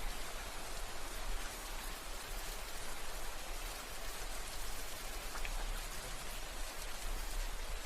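Steady rain falling, an even hiss of drops with a few distinct drip ticks and a low rumble underneath.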